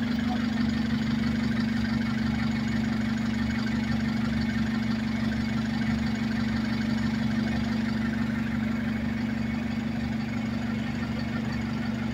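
Street traffic noise with a steady, even engine hum from an idling vehicle close by.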